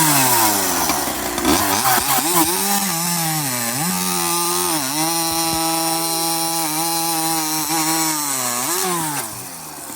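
Husqvarna 372XP two-stroke chainsaw with an internal-stinger expansion pipe cutting wood at full throttle under hard feed pressure. The engine note dips briefly a few times and recovers, holding its revs without bogging, then drops away near the end as the cut finishes.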